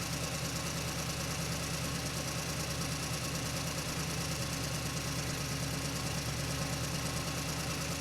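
Tractor engine idling steadily, with a quick, even pulse.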